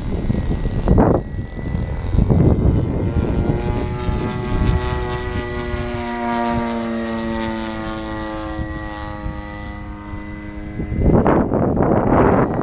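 470-size scale BO 105 radio-controlled helicopter in flight: a steady, many-toned whine of its motor and rotor, clearest in the middle. Gusts of wind buffet the microphone at the start and take over again near the end, when the whine cuts off suddenly.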